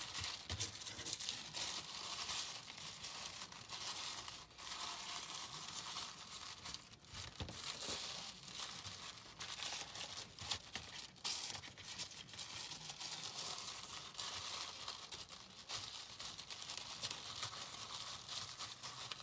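Tissue paper crinkling and rustling as it is folded and pressed down by hand, a continuous run of small crackles.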